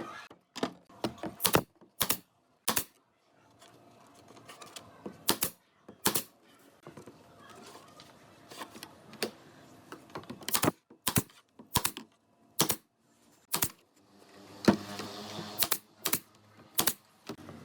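Sharp knocks in a workshop, about twenty in all, irregularly spaced, some in quick runs of two or three.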